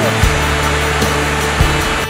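Steady full rush of water from the Hraunfossar waterfalls, many thin falls pouring into a river, under background music with low held notes and two soft beats.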